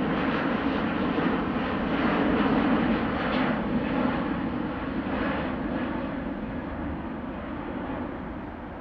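Airbus A380's four Rolls-Royce Trent 900 turbofan engines at take-off thrust as the airliner climbs out, a steady deep jet noise. It fades gradually over the second half as the aircraft draws away.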